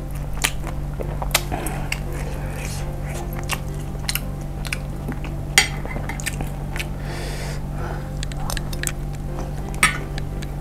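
Eating sounds: a metal spoon clinks and scrapes in a ceramic dish of chili broth as meatballs are scooped, with mouth sounds of chewing in between. Scattered sharp clicks; the loudest clink comes about five and a half seconds in, and another near the end.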